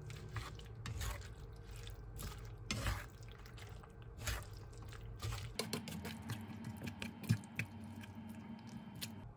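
Chicken and vegetable stir-fry sizzling and bubbling in its sauce in a nonstick frying pan, with many small scattered pops and light clicks as wooden chopsticks stir it.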